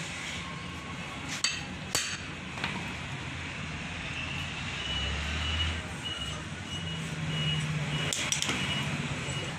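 Hammer knocking on the flywheels of a 200cc CNG auto-rickshaw crankshaft, part of balancing it. There are a couple of sharp metallic knocks about a second and a half in and a quick cluster near the end, over a steady low rumble, with a high beeping repeating through the second half.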